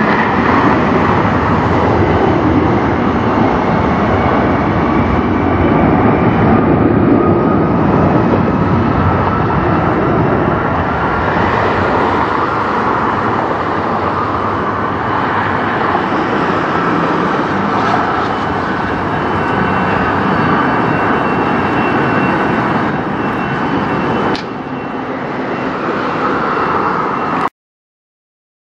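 Boeing 717-200's two rear-mounted Rolls-Royce BR715 turbofan engines at power on the takeoff run: loud, steady jet noise with a faint whine that rises slowly. The sound drops a little about 24 seconds in, then cuts off suddenly near the end.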